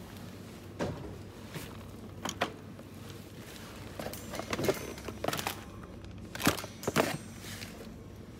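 Supermarket background: a low steady hum under a handful of short knocks and clatters, the loudest two close together near the end.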